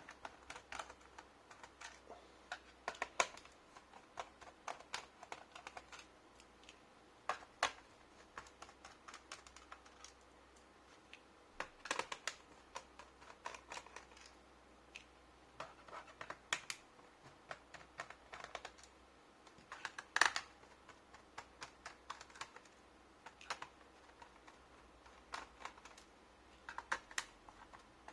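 Screwdriver working the screws out of the plastic underside of an HP G62 laptop: scattered small clicks and taps of the tool, screws and plastic case.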